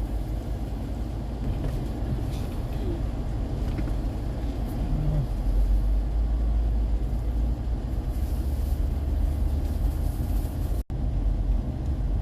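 Steady low road and engine rumble heard from inside a moving car's cabin. It cuts out for an instant about a second before the end.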